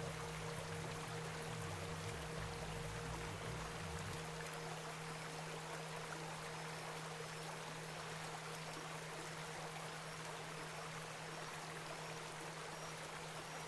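Steady rain with a soft, sustained low music drone beneath it, and a few low notes in the first few seconds.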